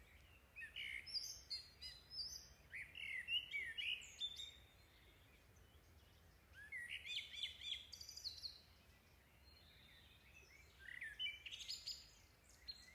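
Faint bird chirps and tweets coming in three short bursts of quick, gliding calls.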